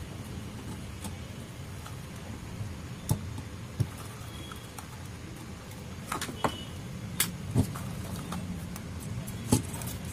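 Scattered light clicks and taps as a soldering iron works over an inverter's circuit board and the board is handled, over a steady low background hum.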